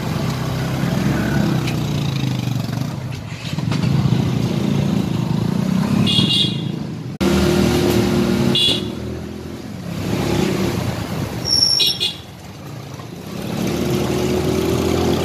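Motorcycle engines running while riding through street traffic, with several short horn toots about six, nine and twelve seconds in.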